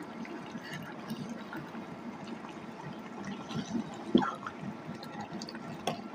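Smoked pork and vegetable curry with axone simmering in the pot, with a steady, fine bubbling and crackling. A sharp click about four seconds in and another near the end.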